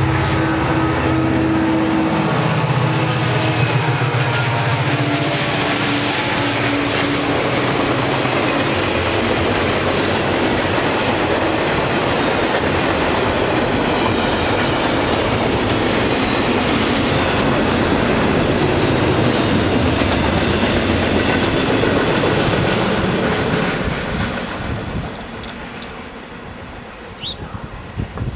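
Freight train rolling past at close range: a steady, loud rumble of boxcars and container cars on the rails, with a low drone in the first few seconds. The noise dies down over the last several seconds.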